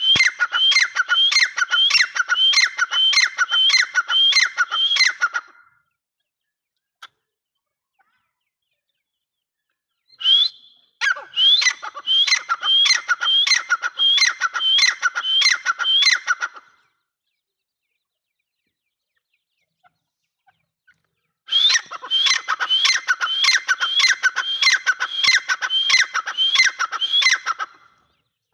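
Grey francolin calling loudly: three bouts of quickly repeated notes, about two a second, each bout lasting five to six seconds, with pauses of about five seconds between.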